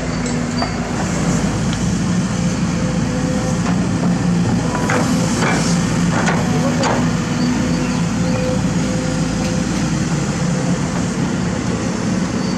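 Kobelco SK200 hydraulic excavator's diesel engine running steadily under working load, with a few sharp knocks and clatters about five to seven seconds in as the bucket works the dirt.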